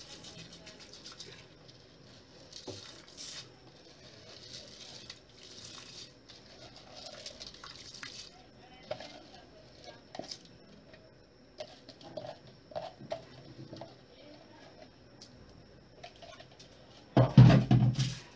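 Dry rice grains poured in several goes into a steel pot of broth, pattering and hissing as they hit the liquid. A loud thump near the end.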